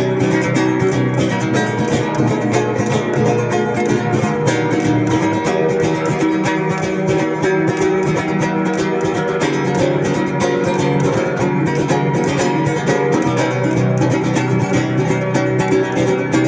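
Acoustic guitar music: a steady, unbroken stream of plucked notes.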